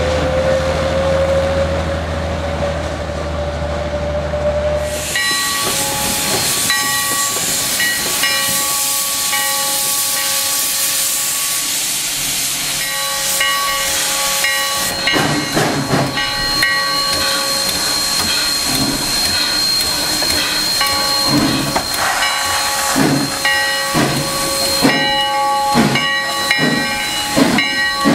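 Sierra Railway No. 3, a 4-6-0 steam locomotive, standing and hissing steam, with a steady whistling edge to the hiss. From about halfway it adds an irregular run of low thumps. For the first five seconds, before the hiss starts, a small diesel switcher runs with a low hum and a slowly rising whine.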